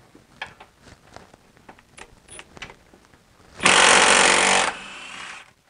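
A few faint clicks, then a cordless impact wrench hammers loudly for about a second on a subframe bolt of the BMW X3, then runs on more quietly for about a second before stopping.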